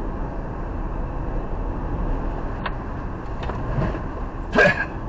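Steady road and engine noise heard from inside a moving car at expressway speed, mostly low rumble and tyre noise. A short voice-like sound comes in near the end.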